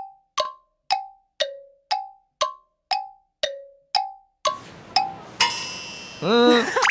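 Comic music cue of single plinked notes, about two a second, hopping between a few pitches over silence. Near the end street noise comes in with a whoosh and a loud, wavering, rising-and-falling warble.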